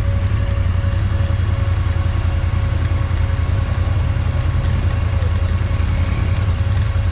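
An off-road vehicle's engine running steadily at low revs, with a faint steady whine.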